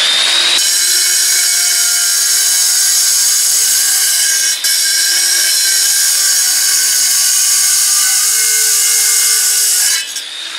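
Handheld angle grinder with a cutting wheel sawing dry through bluestone: a loud, steady high whine with grinding. It dips briefly about four and a half seconds in and eases off near the end.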